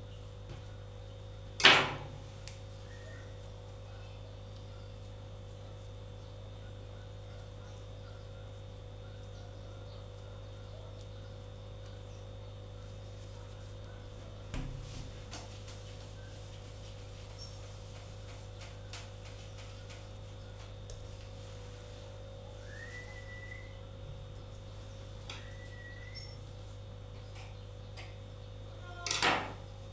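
Knocks from a knife and pizza dough on a wooden countertop as the dough is cut into portions and shaped into balls: a sharp knock about two seconds in, a softer one midway and another near the end, over a steady low hum.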